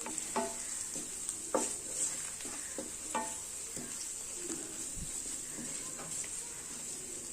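Onions, ginger-garlic paste and spice powders sizzling steadily in hot oil in a pan while being stirred. The utensil scrapes and knocks against the pan a few times.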